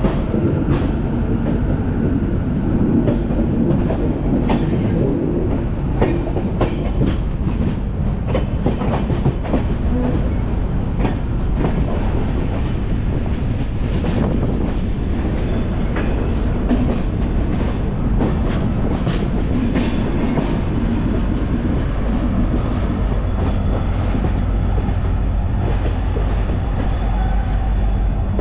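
Passenger train running along the track: a steady low rumble of the wheels and carriage, with frequent irregular clicks and knocks as the wheels cross rail joints.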